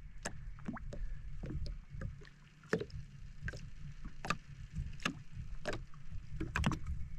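Irregular sharp clicks and knocks, about a dozen, of fishing tackle being handled aboard a jet-ski, over a steady low rumble of water and wind.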